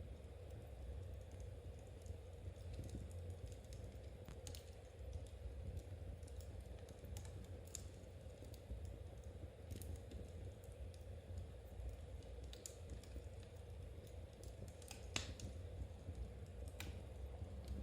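Knitting needles clicking softly as yarn is worked, mixed with the sharp, irregular pops of a wood fire crackling, over a low steady hum.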